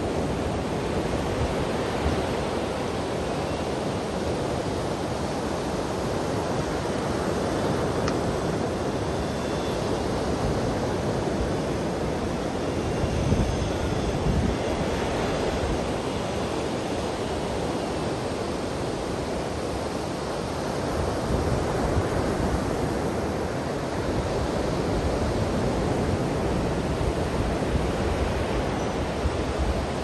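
Surf breaking and washing up a sandy beach: a steady rush that swells and ebbs slowly.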